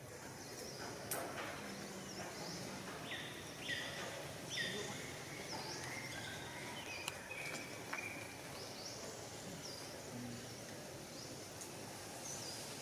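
Outdoor background noise with many short, high-pitched animal chirps and squeaks coming and going, busiest a few seconds in.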